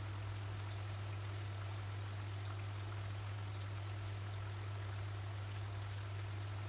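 Steady background hiss over a constant low hum, with faint scattered ticks.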